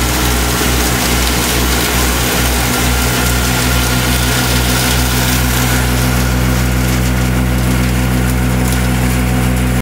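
Gehl silo blower, driven by a Case 830 tractor, running steadily at speed as the last of the chopped corn silage passes through its feed table and the table runs empty. It makes a steady mechanical hum with a rush of air over it.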